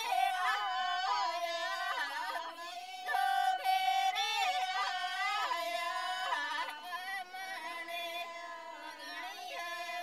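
Soundtrack music: a high female voice singing a slow melody whose pitch slides and wavers in ornaments.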